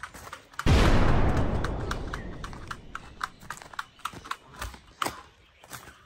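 A sudden loud bang, like a gunshot, about half a second in, fading away over about two seconds, followed by a run of light quick taps.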